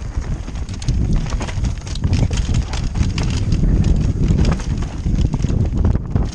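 Mountain bike descending a rocky, stony trail at speed: tyres crunching over loose stones and the bike clattering with rapid, irregular knocks, over a steady low rumble.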